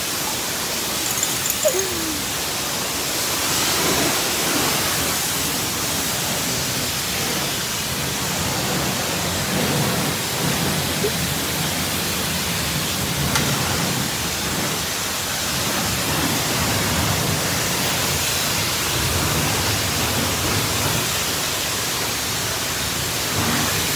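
High-pressure spray wand at a self-serve car wash, a steady hiss of water jetting onto a car's body.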